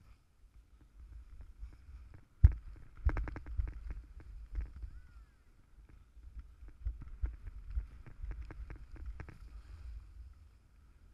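Skis running over groomed snow on a downhill run, heard through a GoPro camera's housing: low wind rumble with a string of irregular clattering knocks, the sharpest about two and a half seconds in.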